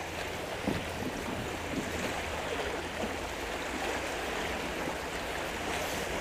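Small waves lapping against a kayak hull: a steady watery rushing hiss, with a few faint ticks.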